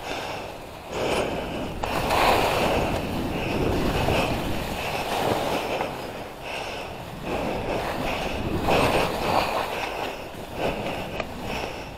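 Skis hissing and scraping through chopped-up powder snow, with wind buffeting the microphone; the noise rises and falls every second or two.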